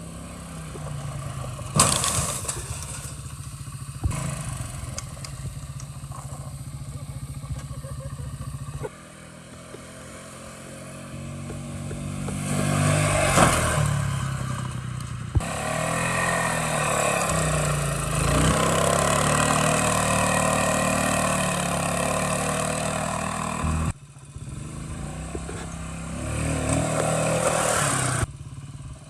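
Four-wheeler (ATV) engine running while it is ridden, holding steady at first, then revving up and down. The sound changes abruptly several times, as between short spliced clips.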